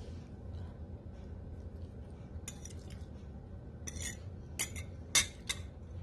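A metal fork clinking and scraping against a ceramic plate, about five sharp clinks in the second half, the loudest a little after five seconds in, over a low steady hum.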